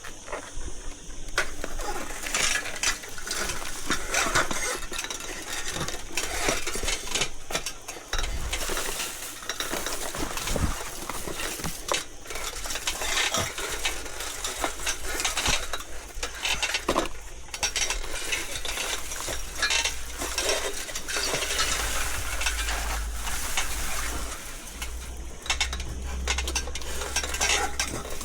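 Cut branches and leafy twigs being handled and broken up: dense, irregular crackling and rustling of foliage with many sharp snaps and clicks.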